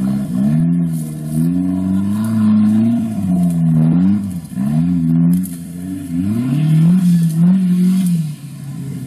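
Off-road 4x4's engine revving hard in repeated surges, its pitch climbing and dropping back several times, as the vehicle claws up a muddy slope.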